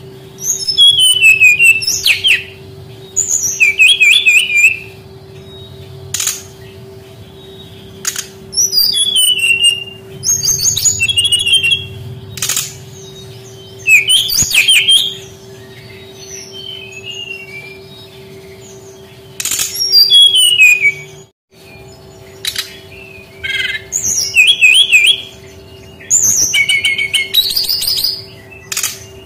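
Brown-chested jungle flycatcher (sikatan rimba dada coklat) singing: loud phrases of rapid twittering, trilled notes, one every two to three seconds. A steady low hum sits underneath.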